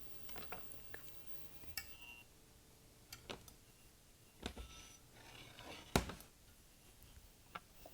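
Knife cutting onion on a cutting board: a few faint, irregular taps, the loudest about six seconds in.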